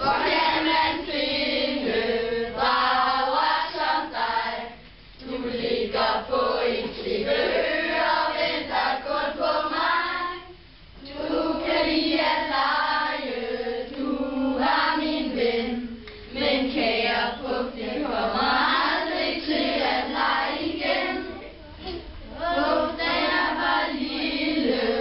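A group of children singing together as a choir, joined by a woman's voice, in phrases separated by brief pauses for breath.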